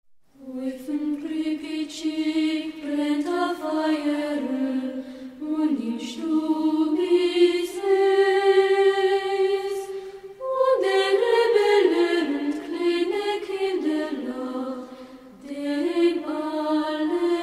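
Children's choir singing a slow Yiddish folk song in unison, in long phrases with short breaks between them.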